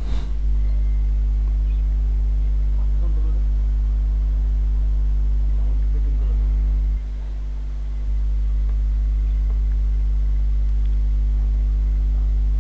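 Steady electrical mains hum, a low buzz with a stack of overtones, carried on the recording. A sharp click at the start, and the hum drops away briefly about seven seconds in before coming back.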